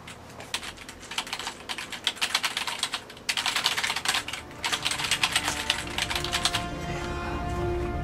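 Fast typing on a computer keyboard, rapid clicks in runs with a couple of short breaks. Music comes in about two-thirds of the way through and carries on after the typing stops near the end.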